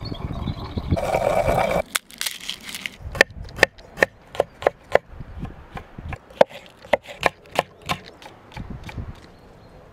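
A rough scraping noise for about the first two seconds, then a kitchen knife chopping carrot and leek on a wooden chopping board: sharp knocks of the blade on the wood, about two to three a second, stopping about eight seconds in.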